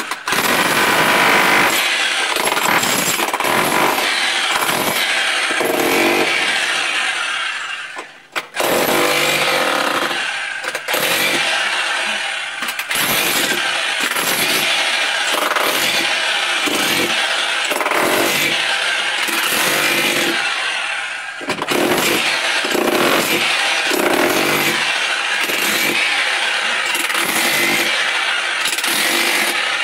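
Electric demolition hammer chipping up a tiled floor and the packed soil beneath it. It runs in long loud stretches with several brief stops, the longest about eight seconds in.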